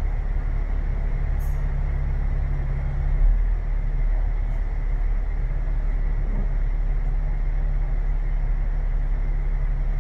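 A bus running steadily, a low engine and road rumble with a faint steady whine, and a single short click about a second and a half in.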